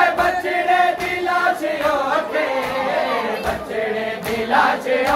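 Crowd of men chanting a Shia noha lament together in unison, with sharp slaps of hands striking chests in matam now and then.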